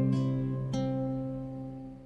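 Background music on acoustic guitar: a last plucked note about two thirds of a second in, then the final chord rings out and fades away.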